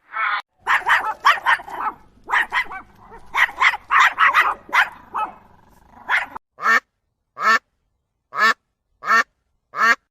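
Ducks quacking: a rapid run of overlapping quacks for about six seconds, then single quacks spaced a little under a second apart.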